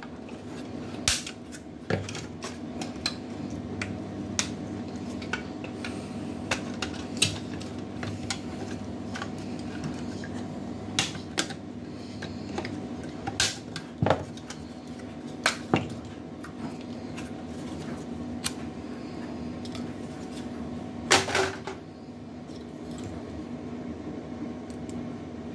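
Side cutters snipping apart a plastic PC case fan and its wires: sharp snips and clicks at irregular intervals, the loudest a bit over 21 seconds in, over a steady low hum.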